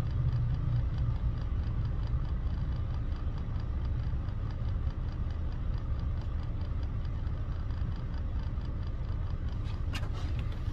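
Steady low rumble of a bus engine and road noise heard from inside the driver's cab, with a few faint clicks near the end.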